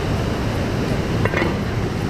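Steady rushing noise of falling or breaking water, even and unbroken, with a brief faint pitched sound about a second in.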